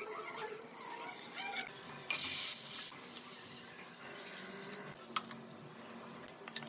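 A short hissing pour into a steel vessel about two seconds in, among faint scattered kitchen sounds.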